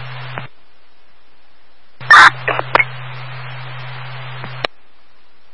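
Fire-department two-way radio traffic heard through a scanner, with no voice: an open channel's hiss and low hum cut off about half a second in. About two seconds in another transmission keys up with a loud burst of noise and two short blips, then hisses with the same hum for about two and a half seconds and ends with a squelch click.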